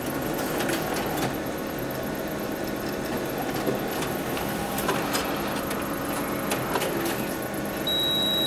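Office multifunction copier running a one-page print job: a steady mechanical whir with a few clicks, then a single high beep about a second long near the end as the job completes.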